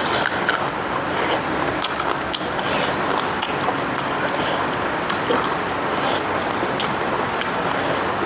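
Person eating, with wet chewing and mouth-smacking clicks coming irregularly about once a second over a steady background hiss.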